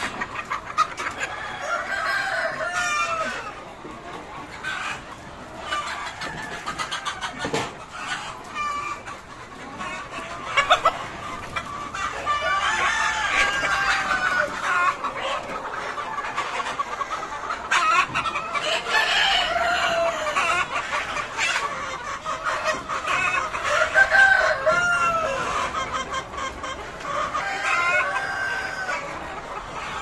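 A flock of breeder chickens in a nest-box poultry house, clucking and calling over each other, with some longer drawn-out calls. Now and then a sharp knock is heard as the wooden nest-box boards are handled.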